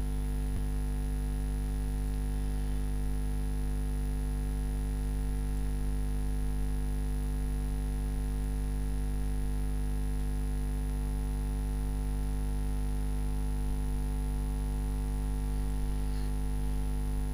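Steady electrical mains hum on the recording: a low buzz with many even overtones and a thin high whine above it.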